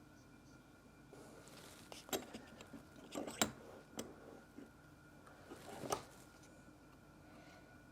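A few sharp clicks and knocks with light rustling, over a faint steady hum: small parts being handled, loudest in the middle of the stretch and again about six seconds in.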